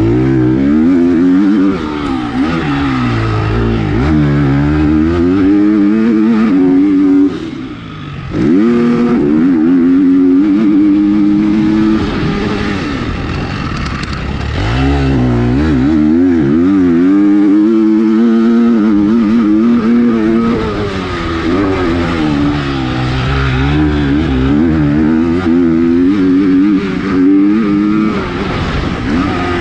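Motocross bike engine revving hard while ridden around a dirt track, its note climbing and falling over and over as the throttle opens and shuts through the gears. About seven seconds in it drops off briefly, then picks up again.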